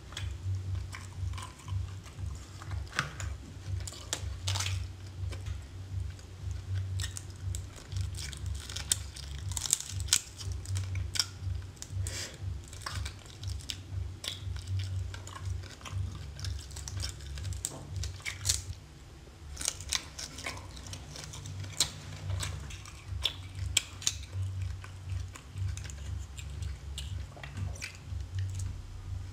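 Close-miked chewing and biting of seafood such as raw prawns and whelks, with frequent sharp clicks throughout. A steady low hum runs underneath.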